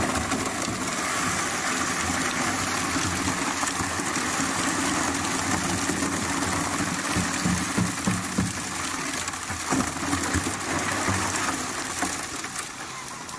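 Water gushing steadily through an aluminium highbanker sluice fed by a small Honda petrol water pump running alongside. About halfway through, a bucket of gravel and cobbles is tipped into the hopper, and rocks tumble and knock in the water.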